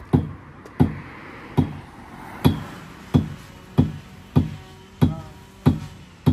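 Background music: a plucked, guitar-like instrument playing single notes at a steady beat, about three notes every two seconds.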